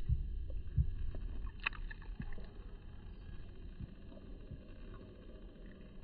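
Low rumble of wind and handling noise on a smartphone microphone, with a few soft knocks in the first second and one short sharp click about a second and a half in.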